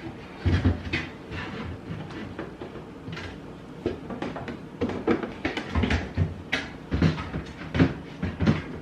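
Irregular knocks, taps and clatter of parts being handled and fitted together while assembling an organizer, with a few heavier thumps in the second half.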